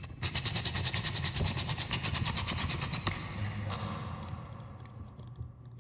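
Socket ratchet clicking rapidly and evenly, about ten clicks a second for some three seconds, as it spins a nut down onto a bolt of an aircraft tailwheel split rim. The clicking then stops and gives way to quieter handling of the rim.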